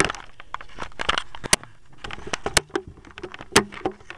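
Handling noise: irregular clicks, knocks and rubbing as a camera is pushed into the bag compartment of an upright vacuum cleaner, with the vacuum not yet running.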